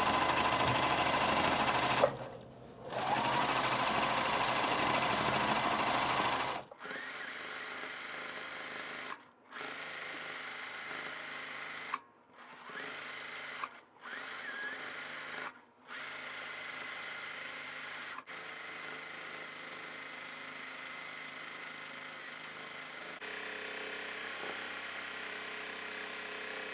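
Juki TL18-QVP Haruka straight-stitch sewing machine running in spurts during free-motion quilting. It runs fast and loud for the first several seconds, with one short stop about two seconds in, then goes on more softly with several brief stops and starts.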